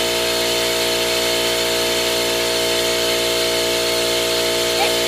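Compressed air rushing through the venturi of a vacuum-type cooling-system refill tool, a steady loud hiss with a few steady tones, drawing a vacuum on the car's cooling system so that coolant can be pulled in.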